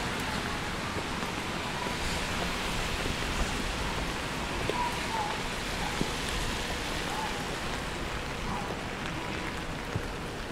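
Steady rain falling on wet pavement and road, an even hiss, with a few faint clicks of drops.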